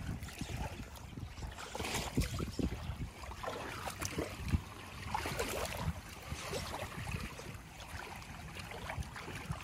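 Shallow water swishing and lapping as a wet cast net is dragged in through it to the shore, with wind buffeting the microphone in low rumbles.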